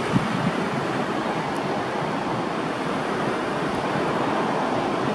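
Steady rushing noise of jet airliner engines at taxi power, heard from across the airfield, with no clear whine or change in pitch.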